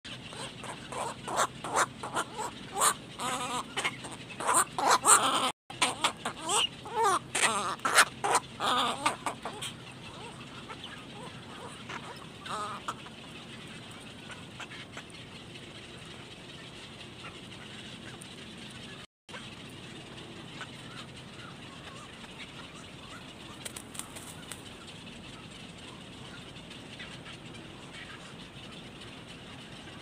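Black-crowned night herons at the nest giving a rapid run of short, harsh calls that changes pitch quickly, for about the first ten seconds. After that only a few single calls sound over a steady background hiss.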